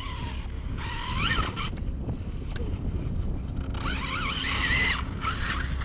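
Radio-controlled monster truck's motor whining up and down in pitch as it is throttled, once about a second in and again near the four-second mark, over a low rumble of wind on the microphone.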